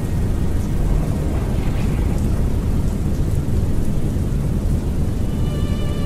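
Steady rain with a deep, continuous rumble of thunder. About five seconds in, a few held musical notes start to sound over it.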